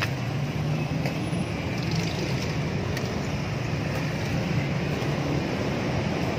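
Road traffic noise: a motor vehicle's engine running steadily, a low hum with a slight wavering in pitch.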